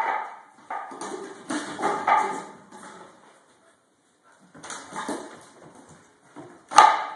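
Rottweiler puppy scrambling about on a hardwood floor in play: irregular bursts of scuffling paws and claws. They pause for a second or so midway, and a sharp knock near the end is the loudest moment.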